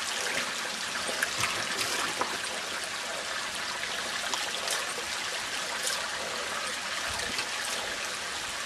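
Small mountain stream trickling and splashing steadily over rocks, with a few faint light clicks.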